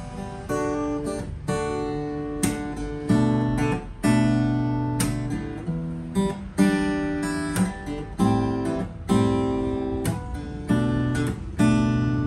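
JiazHuo cutaway acoustic-electric guitar strummed unplugged, heard through its own body rather than a speaker. A run of chords, each stroke ringing and fading before the next, about one to two strokes a second.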